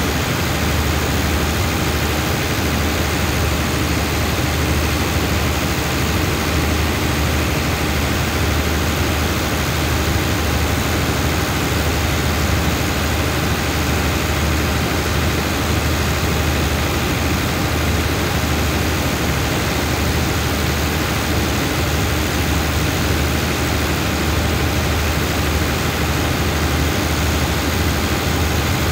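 Diesel engine of a standing passenger train idling: a steady low hum that holds even throughout, with a constant hiss over it.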